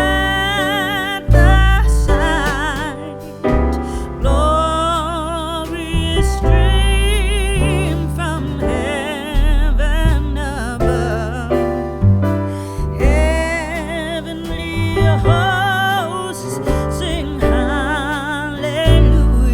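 Background music: a song with a singing voice held in long, wavering notes over piano and a heavy bass line.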